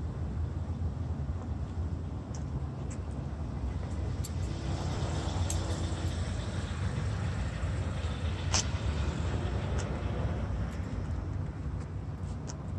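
Steady low outdoor background rumble, with a sharp click about eight and a half seconds in.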